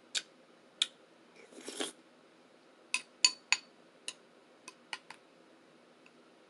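Spoon clinking against a bowl: two taps, a short scrape about a second and a half in, then a run of seven quicker taps, each ringing briefly with a bright tone.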